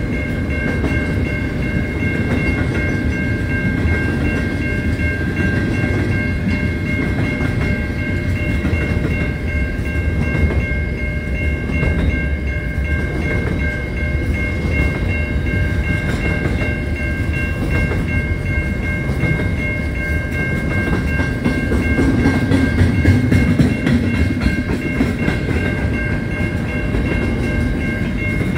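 Container freight train's wagons rumbling and clacking over a level crossing, with the crossing's warning bell ringing steadily on top as a high, unchanging tone. The rumble swells for a few seconds about three-quarters of the way through.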